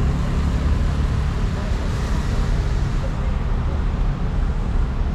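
Road traffic on a busy city street: a steady low rumble of passing cars and buses.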